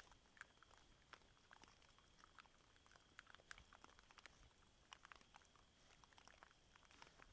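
Wild boar chewing and crunching maize kernels, a faint, irregular run of crunches.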